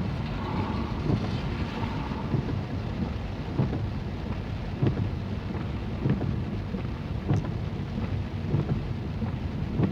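Heavy rain over a low, steady rumble, with soft knocks coming regularly about every second and a quarter.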